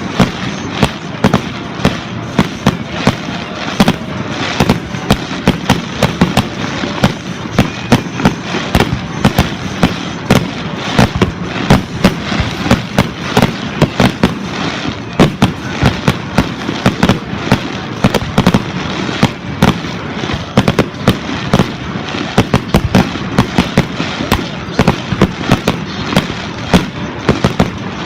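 Fireworks display: a rapid, continuous barrage of bangs and crackles, several sharp reports a second over a steady din of bursting shells.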